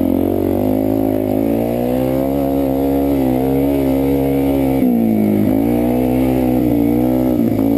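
Suzuki DR-Z400E's single-cylinder four-stroke engine running hard under throttle. Its pitch climbs, holds, then drops and climbs again about five seconds in, and once more near the end.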